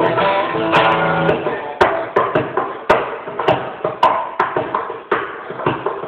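Guitar played solo with sharp, percussive strums at an uneven beat.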